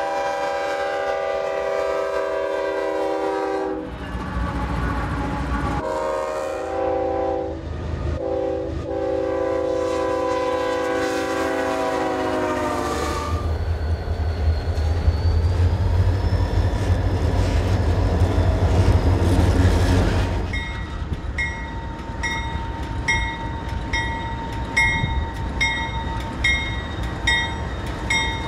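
Diesel freight locomotives passing: a multi-chime air horn sounds one long blast and then, after a short pause, a longer broken one, followed by the low steady rumble of a passing locomotive. In the last third a bell rings at a steady rhythm as the BNSF locomotives pass.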